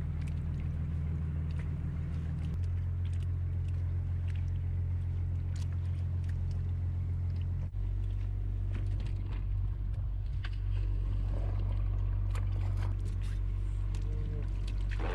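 Fishing boat's engine running with a steady low hum, which jumps to a different pitch twice, about two and a half and seven and a half seconds in. Light clicks and knocks of wet fish being handled sit over it.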